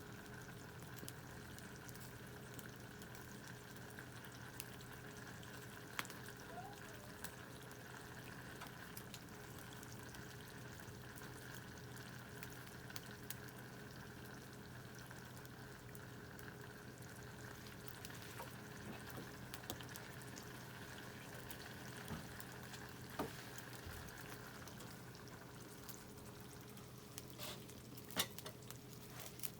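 Canned food sizzling and bubbling in its open tin over a wood campfire, with a steady frying hiss and scattered small crackles and pops. The sizzle fades about three-quarters of the way through.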